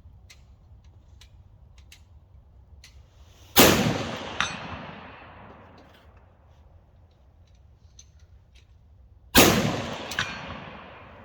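Two rifle shots from a .308, about six seconds apart, each ringing out for a couple of seconds. About a second after each shot comes a short metallic clang, the bullet striking a steel target downrange.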